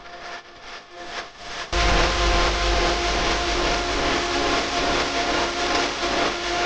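Steady mechanical running noise: a deep rumble and hiss with a few steady humming tones, which comes in suddenly about two seconds in and then holds level.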